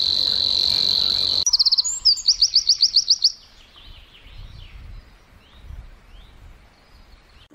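Birdsong in two parts. First a Savi's warbler's reeling song, a steady insect-like buzz that cuts off after about a second and a half. Then a Eurasian wren's loud rapid trill of repeated high notes, about eight a second, ending a little after three seconds in, followed by fainter scattered chirps.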